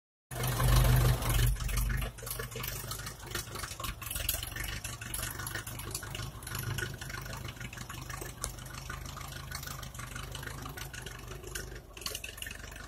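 1954 Ferguson TEA-20's four-cylinder petrol engine, 87 mm bore with a 28G carburettor, idling steadily. It is louder for about the first two seconds, then settles.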